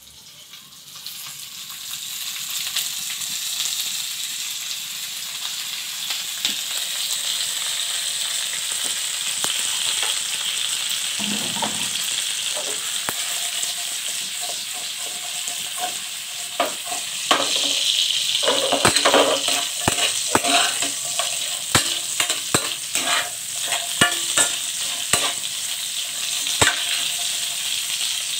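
Dried queenfish (daing na talang-talang) frying in a hot wok: a steady sizzle that builds over the first two seconds. From about halfway on, a spatula scrapes and clicks against the pan again and again as the fish is stirred.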